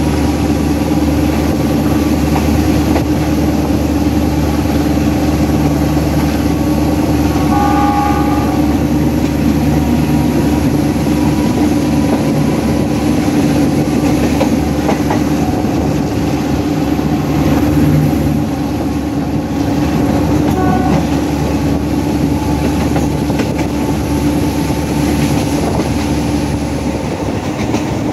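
Alsthom diesel locomotive's engine working hard under power, a loud steady drone heard from the cab window, with the train's wheels running on the rails; it eases slightly after about eighteen seconds.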